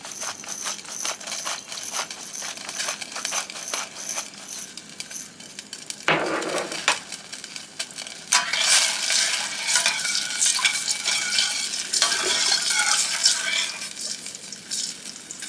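Rapid fine clicking of a pepper grinder over a saucepan for about the first six seconds. From about eight seconds in, a metal spoon stirs and scrapes around a stainless steel saucepan of simmering, cornstarch-thickened pan sauce.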